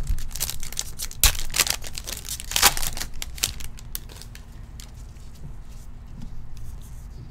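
Foil trading-card pack (Contenders basketball) being torn open by gloved hands: crinkling and tearing of the foil wrapper for about four seconds, with two louder rips, then fainter rustling as the cards are handled.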